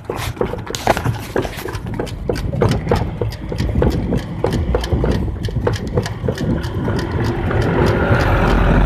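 Footsteps at an even pace, about two a second, over a vehicle engine running; the engine, a bus's, grows louder near the end as the bus comes close.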